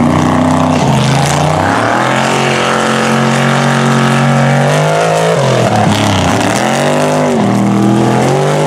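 Mega truck engine at high revs, racing flat out. The revs climb about two seconds in, hold steady, then drop and rise again twice in the second half as the driver lifts off and gets back on the throttle.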